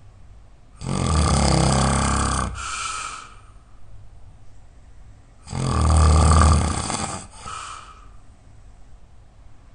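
A person snoring really loud: two long, loud snores about five seconds apart, each followed by a shorter, quieter breath.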